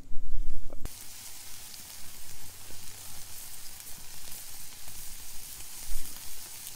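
Shrimp sizzling on a grill grate over a campfire: a steady sizzle that starts suddenly about a second in, after a brief low rumble.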